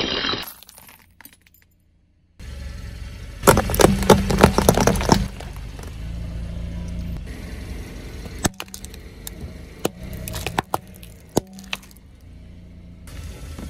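A car tyre rolling slowly over small plastic and metal objects and crushing them: a cluster of sharp cracks and crunches about three and a half seconds in, then scattered snaps and clicks, over a steady low rumble from the car.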